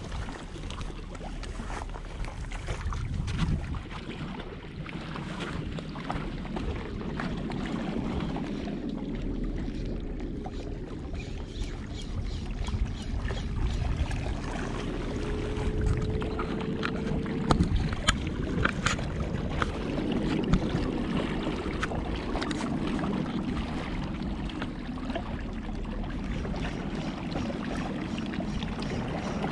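Wind rumbling on the camera's microphone over water washing against shoreline rocks, with scattered clicks from a spinning reel being worked partway through.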